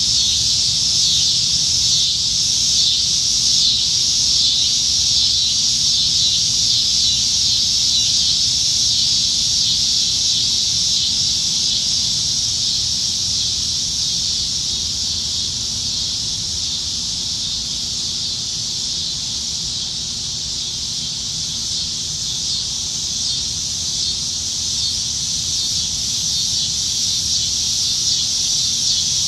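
Chorus of cicadas singing in the trees: a steady, dense, high buzz that fades a little in the middle and swells again near the end.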